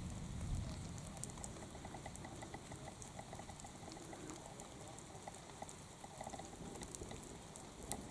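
Light rain and water dripping from the trees, scattered drops pattering and ticking.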